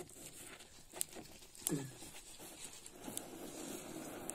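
Small wood cooking fire under a pot: a few sharp clicks and pops, then a soft steady rushing hiss from about three seconds in. A brief falling cry, animal or human, is heard about halfway.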